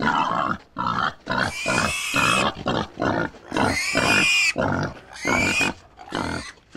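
Wild hog squeals and grunts: a run of short grunting calls broken by three longer, high squeals that rise and fall in pitch.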